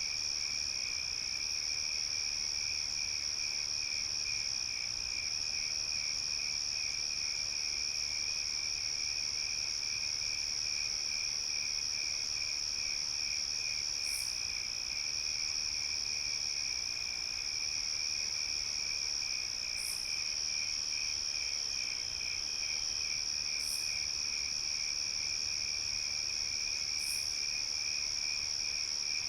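Crickets chirping in a dense night chorus: one continuous high trill and, beneath it, a lower rapidly pulsing trill. In the second half a few brief, higher chirps come every three to six seconds.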